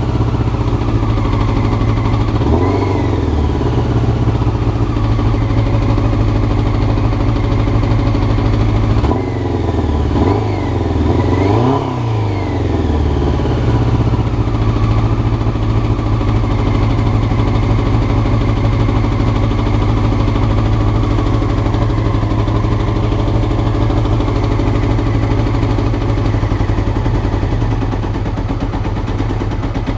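Carbureted Honda CBR motorcycle engine running at idle, with short throttle blips about two and a half seconds in and a few more around ten to twelve seconds in, then settling back to a steady idle.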